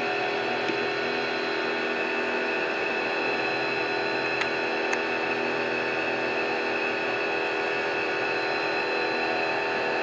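Sun Joe pressure washer running steadily, spraying soap through a foam-cannon bottle on the wand: a constant motor hum mixed with the hiss of the spray, with two faint ticks about halfway through.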